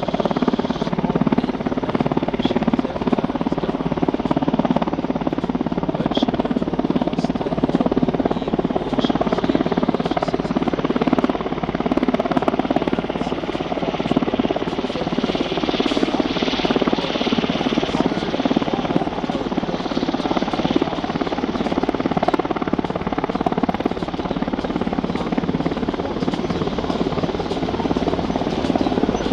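NH90 NFH naval helicopter's main and tail rotors and twin turboshaft engines running, a steady continuous drone that holds the same level and pitch throughout.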